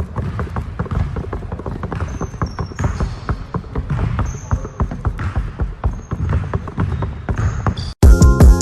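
Rapid, irregular thuds with a few short high squeaks. About eight seconds in, loud hip hop music cuts in abruptly.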